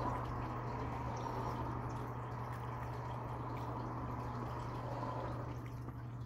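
Close-up chewing of a soft bun topped with omelette and pork floss: moist, squishy mouth sounds, with a steady low hum underneath.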